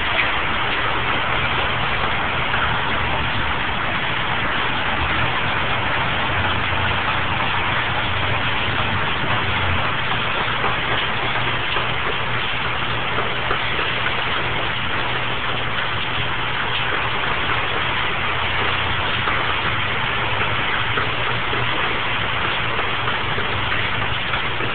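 Steady, even hiss of rain falling during a thunderstorm, with a steady low hum underneath.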